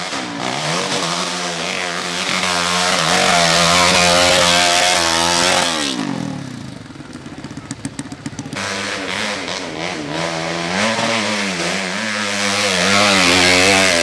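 Dirt bike engines revving hard on a steep hill climb, the pitch rising and falling as the throttle is worked. About six seconds in, the revs fall away to a low putter for a couple of seconds, then climb again.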